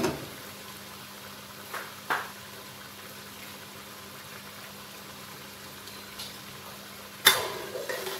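Thick chili sambal bubbling as it simmers in an uncovered frying pan, with a few short pops. About seven seconds in, a spatula knocks loudly against the pan and starts stirring the sauce.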